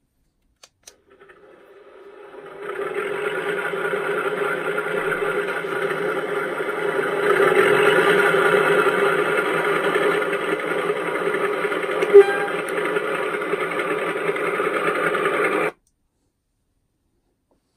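Zimo sound decoder in an O gauge model Class 52 Western diesel playing the start-up of its twin Maybach engines through the model's small speakers: the first engine starts and settles into a steady idle, and the second joins about seven seconds in, making it louder. All sound cuts off suddenly near the end as a magnet on the reed switch shuts the loco off.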